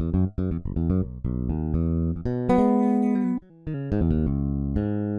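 Sampled electric bass from the EzBass virtual instrument playing a gospel bass line: a run of short plucked notes, with a longer held, brighter passage about halfway through.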